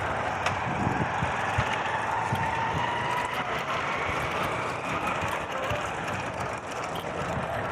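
Steady rushing road and traffic noise heard while cycling along a street, with a vehicle passing as a faint whine that slowly shifts in pitch.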